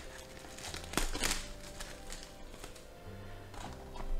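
Soft background music with steady notes, and a short crinkle of a plastic card-pack wrapper being torn open about a second in, with a smaller rustle near the end.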